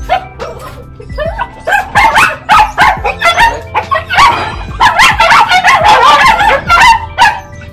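Caged dogs barking in a rapid, overlapping run of sharp barks that starts about two seconds in.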